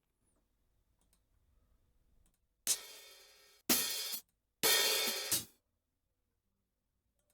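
Three cymbal drum samples played back one after another about a second apart, each a bright hiss that rings out, the second cut off suddenly. A few faint clicks come before them.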